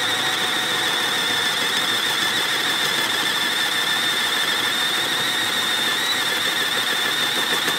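Hyper Tough cordless drill running under load, boring a hole in a wooden board with a spade bit: a steady, high-pitched motor whine.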